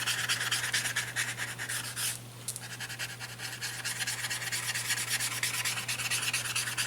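Paper tortillon rubbed quickly back and forth over paper, blending white charcoal in a rapid run of fine scratchy strokes, with a short pause about two seconds in.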